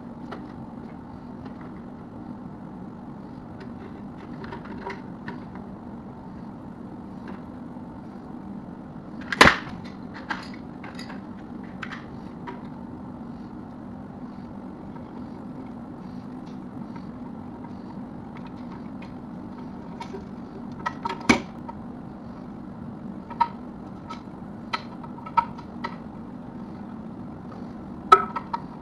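Scattered sharp clicks and knocks of toilet tank parts being handled, over a steady low hum. The loudest knocks come about a third of the way in, about two-thirds in, and near the end.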